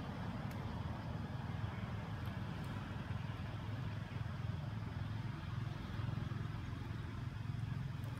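Steady low engine rumble, like a motor vehicle running, at an even level throughout.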